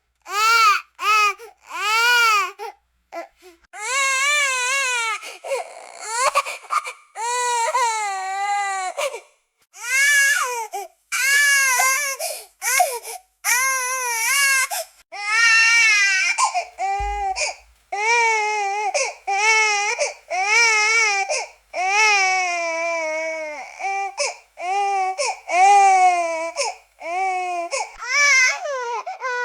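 Infant crying and screaming: a long run of high-pitched wails, one after another with short breaths between, each rising and then falling in pitch.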